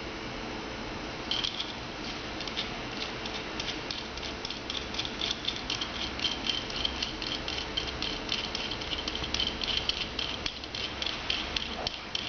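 Locking pliers being handled and reassembled after a new spring is fitted: a quick, uneven run of small metallic clicks and rattles with a faint metallic ring, starting about a second in.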